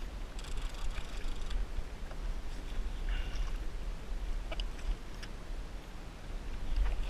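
Sea water sloshing and lapping around a kayak, with wind rumbling on the microphone and a few light clicks in the middle. There is a slightly louder splash near the end as a hooked bluefish and the umbrella rig are pulled up out of the water.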